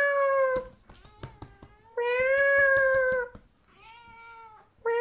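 British Shorthair cat meowing: a series of long, drawn-out meows, loud and fairly level in pitch, with a fainter, shorter one between the second and third. A few soft taps fall between the first two meows.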